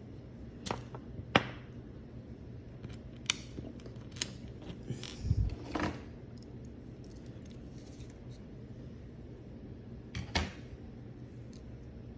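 Small plastic parts of an opened Xbox One controller being handled and set down: scattered sharp clicks and taps, with a dull knock about five seconds in.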